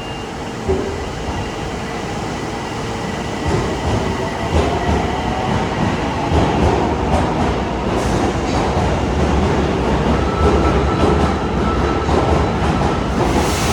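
Osaka Metro Tanimachi Line subway train moving along the platform. The rumble grows louder about three and a half seconds in and stays loud, with scattered clicks from the wheels and a faint steady tone near the end.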